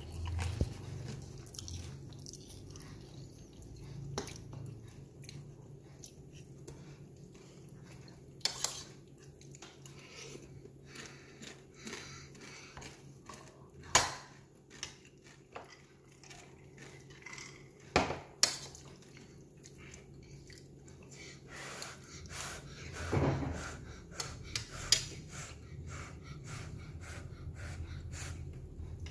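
Close-up eating sounds of spicy instant noodles: chewing, with scattered sharp clicks of the fork against the plastic bowl, the loudest about halfway through and again a few seconds later, over a steady low hum.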